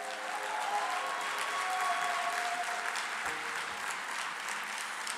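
Audience applauding steadily, with a few faint held musical tones fading out in the first few seconds.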